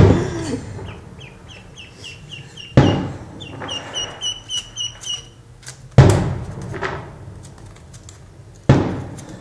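A duckling peeping in two quick runs of short, even, high peeps, about four a second, between four loud thumps.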